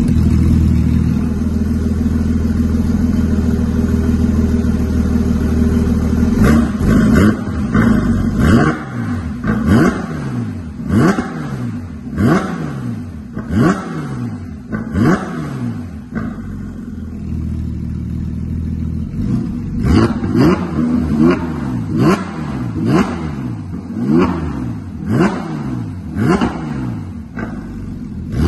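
Porsche 992 GT3 RS's naturally aspirated 4.0-litre flat-six, through an Akrapovic full race exhaust, idles steadily at first. It is then revved in quick throttle blips about once a second. It drops back to idle for a few seconds midway, then is blipped again in another series.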